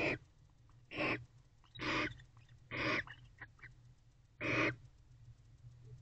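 Barn owl giving five short rasping hiss calls, about a second apart, with a longer pause before the last.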